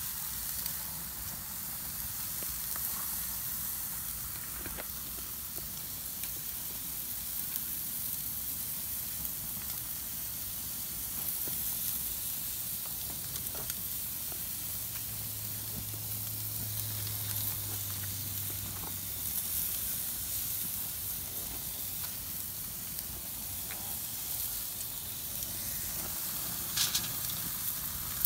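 Steaks searing on the hot grates of a gas grill: a steady sizzle with scattered small pops and crackles, a few sharper ones near the end.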